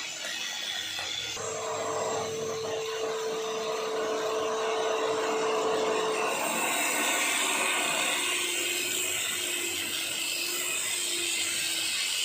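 A motor running steadily with a whining tone. About six seconds in, the sound changes and becomes more hissing.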